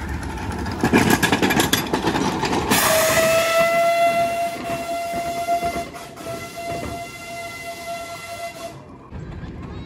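Miniature live-steam locomotive's whistle blowing one long steady note for about six seconds, starting about three seconds in, after a short spell of rapid beats from the running locomotive.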